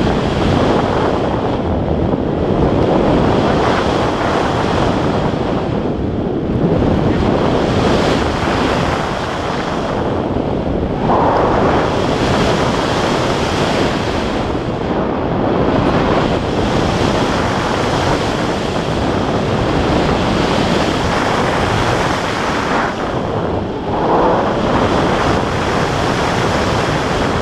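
Airflow of a paraglider in flight rushing over an action camera's microphone: loud, steady wind noise that swells and eases every few seconds.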